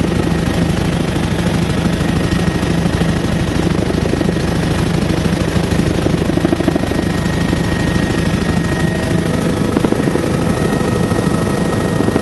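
Helicopter in flight heard from inside the cabin: steady engine and rotor noise with a rapid, even rotor chop and a thin high whine.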